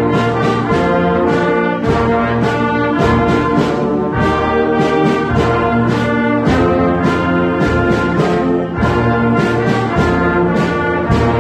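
Wind band playing, brass and woodwinds holding chords over a steady beat of sharp percussion hits.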